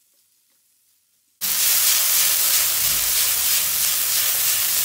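Near silence for about the first second and a half, then diced chicken, carrot and onion sizzling loudly in hot oil in a frying pan as they are sautéed over high heat.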